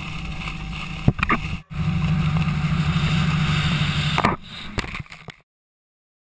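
Steady drone of a tow boat's engine with the rush of water and wind while water skiing, heard at the skier's hand-held camera, with a few knocks as the camera is handled. It cuts off abruptly near the end.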